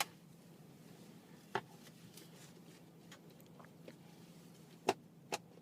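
A few sharp clicks and knocks from a car seatbelt buckle being fumbled, the metal tongue knocking against the buckle without latching; the loudest two come close together near the end.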